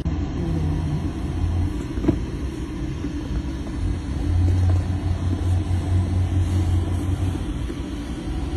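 OceanGate Titan submersible's onboard machinery running, a steady low drone heard inside the cabin. It swells for a couple of seconds from about four seconds in, with a faint click about two seconds in.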